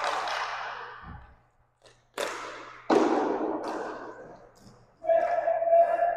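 Sharp clacks of hockey sticks and a roller hockey puck, each echoing through the large rink hall, several in a few seconds. About five seconds in, a player shouts in one long held call.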